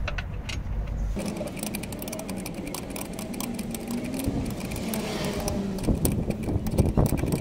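A 21 mm spanner turning the nut off the mounting bolt of the rear-wheel-steering actuator: a fast, continuous run of metallic clicks starting about a second in, over a low rumble.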